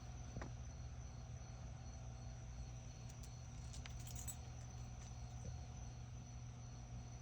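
Crickets trilling steadily in the night chorus, one in an even pulsing rhythm, over a low background rumble, with a few faint clicks about four seconds in.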